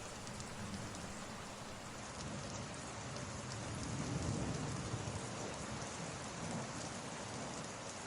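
Steady rain, added as a background ambience track, with a low rumble swelling and fading about four seconds in.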